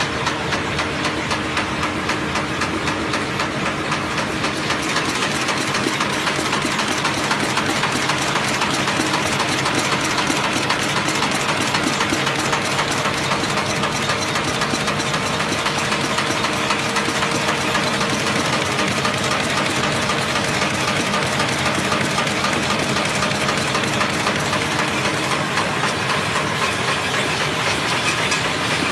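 Paper bag making machine running steadily: a dense, fast mechanical clatter over a constant hum and hiss.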